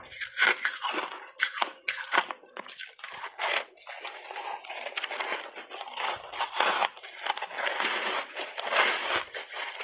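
Ice blocks dusted with matcha powder being bitten and chewed close to the microphone. Sharp separate crunches come first, then a denser, near-continuous crunching from about halfway through as the ice is ground between the teeth.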